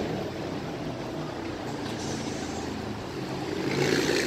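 Street traffic: cars and other vehicles driving past, a steady rush of engines and tyres that grows louder near the end.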